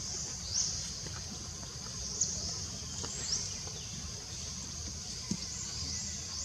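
A chorus of insects, likely cicadas, keeps up a steady high-pitched buzz with short rising sweeps repeating every second or so, over a constant low rumble.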